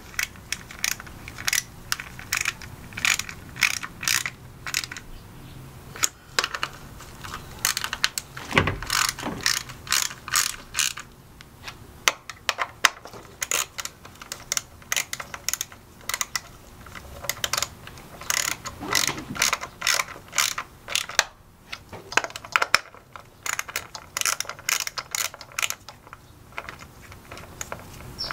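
Socket ratchet clicking in quick runs as the ignition coil bolts are run down and tightened, with brief pauses between runs.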